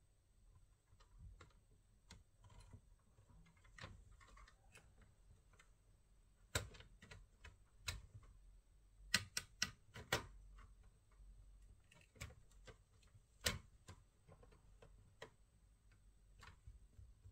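Irregular light clicks and taps of hard plastic, as from a laptop being handled or typed on, with a cluster of louder sharp clacks around the middle.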